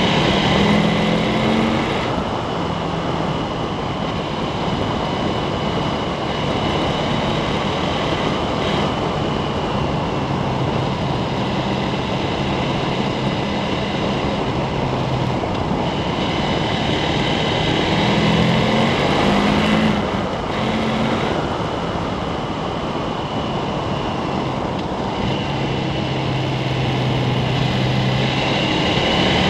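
KTM 1290 Super Adventure's V-twin engine running at road speed under a steady rush of wind noise, its note rising and falling briefly at the start, about two-thirds of the way through, and near the end.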